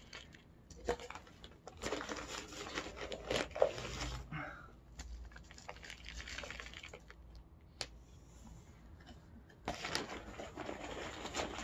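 Crinkling and rustling of plastic and soil in several bursts, with a few light clicks: a flexible plastic cup handled and tipped to free a seedling's root ball, and near the end a plastic bag of potting soil rummaged into.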